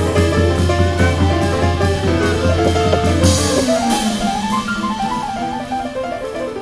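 Background music with guitar and a steady drum beat. A little over halfway through, the bass and beat drop out and a melody line carries on alone.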